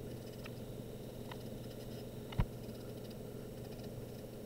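Faint handling sounds of a paintbrush on a small wooden model airplane: a few light ticks and one sharp click about two and a half seconds in, over a steady low hum.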